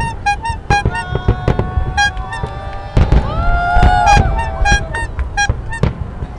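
Fireworks salute shells bursting in a rapid run of sharp bangs, with a loud cluster about three seconds in. Under them, short beeps repeat several times a second, and a rising-then-falling electronic wail takes over for about a second before the beeping resumes.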